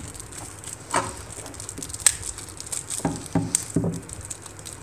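White paper wrapping being unfolded and pulled off a power bank by hand: crinkling and rustling, with sharp crackles about one and two seconds in and a quick run of them after three seconds.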